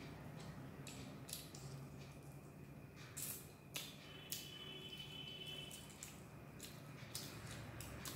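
Close-up wet mouth sounds of eating: fingers being licked and sucked, lip smacks and chewing, heard as an irregular run of short, sharp clicks.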